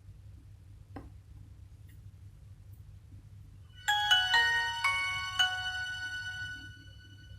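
A Nokia X1-01 mobile phone's speaker playing a short ringtone: a quick run of about six bright, chime-like notes that ring on and fade out over roughly three seconds. A single faint click comes about a second in.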